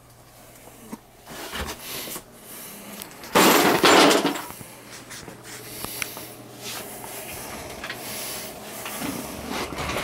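Handling and movement noises: scattered knocks and rustles, with one loud scrape or clatter lasting about a second, a third of the way in.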